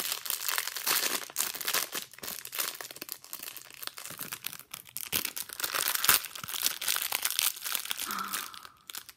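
A crinkly pink toy wrapper being handled and pulled open: steady, irregular crinkling and rustling, with some tearing.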